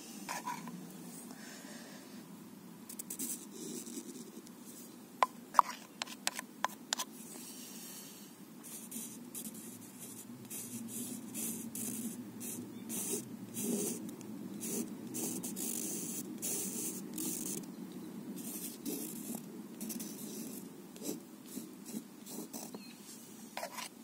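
Art materials handled on paper: about six sharp clicks around five to seven seconds in, then a run of short scratchy, hissing strokes, over a steady low background noise.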